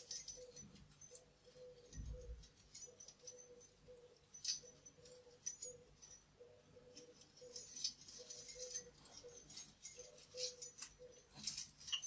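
Faint, scattered jingles and clicks of small metal bells and plastic chain links on a bird toy as it is handled and fastened by hand.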